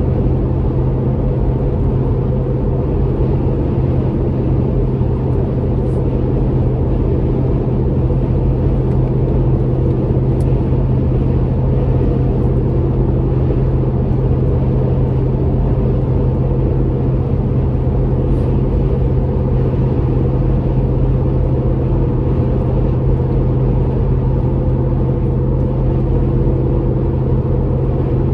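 Inside the cabin of a Toyota 4.7L V8 SUV with a Magnaflow Overland stainless cat-back exhaust, cruising on the highway at about 65 mph and a little under 2,000 rpm: a steady low exhaust drone over road and tyre noise.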